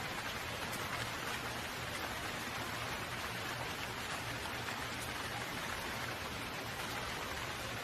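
Steady rain falling: an even, unbroken hiss that does not rise or fall.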